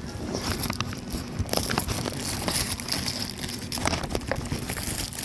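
Rustling and crackling noise with many scattered sharp clicks, like something being crumpled or rubbed close to the microphone.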